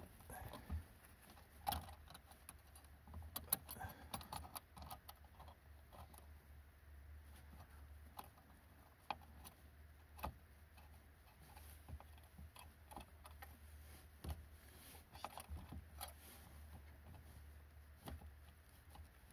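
Faint, scattered small metallic clicks and taps as a copper brake line's fitting is handled and threaded by hand into the rear drum brake's wheel cylinder.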